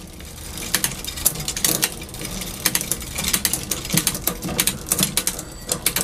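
Trek 8.2 DS bicycle drivetrain turned by hand in a work stand: the chain ticks and clatters over the rear sprockets and derailleur pulleys, with shifter and derailleur clicks, in a string of irregular clicks. It is a shifting check after the rear derailleur's low limit screw was backed out so the chain can climb into the low gear.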